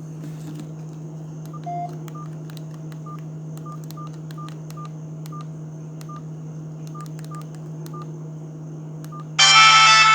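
Verykool S135 feature phone's keypad beeps as its menu is scrolled: a dozen or so short, identical high beeps at uneven intervals, one lower, louder beep near the start, and faint button clicks over a steady low hum. Near the end a loud Sony Ericsson ringtone starts playing through the phone's speaker.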